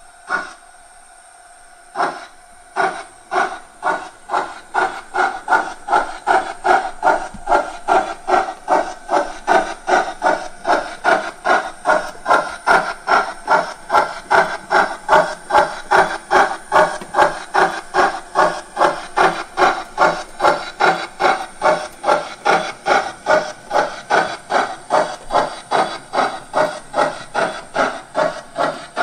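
Steam-locomotive chuffing from a Gauge 1 class 52 model's ESU LokSound sound decoder as the model runs: after a short sharp sound at the start, the exhaust beats begin about two seconds in, quicken, then settle into a steady rhythm of about two to three beats a second, with a faint high whine underneath.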